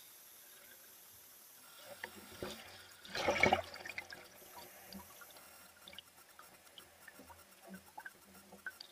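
Water splashing and gurgling around a waterproof camera case at and below the waterline. There is one loud splash about three seconds in, followed by scattered small pops and clicks of bubbles.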